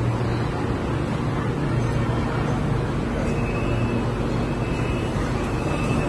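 Shanghai Metro Line 6 train standing at the platform with its doors open, giving a steady low hum and an even rush of noise.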